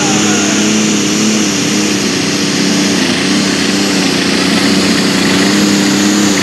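Light super stock pulling tractor's engine running hard under load as it drags the weight sled, a steady, loud drone with a high whine over it.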